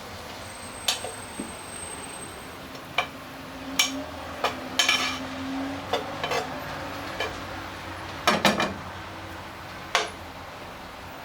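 Kitchen utensils knocking and clinking against pans and dishes, a dozen or so irregular, sharp strikes with a louder cluster about eight and a half seconds in.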